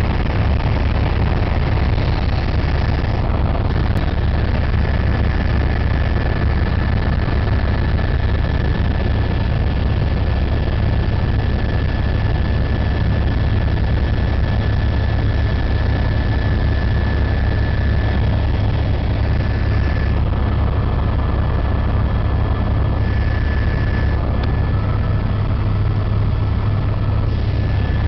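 Helicopter in flight heard from on board: a loud, steady low drone of rotor and engine with a thin steady whine above it.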